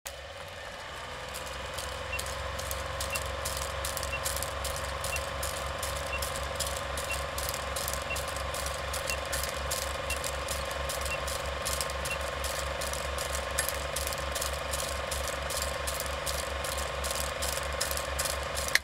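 Film projector running with a fast, even clatter and a steady hum, with a short beep about once a second for about ten seconds, the countdown of a film leader. It cuts off suddenly at the end.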